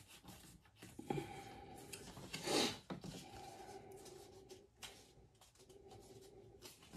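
Faint rubbing and handling of thick 8 to 10 oz English bridle leather as the pieces are bent and molded by hand, with one louder rub about two and a half seconds in.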